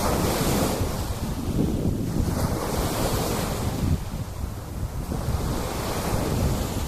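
Sea waves breaking and washing up a sand beach, with steady wind buffeting the microphone as a low rumble. The surf hiss swells and fades every few seconds.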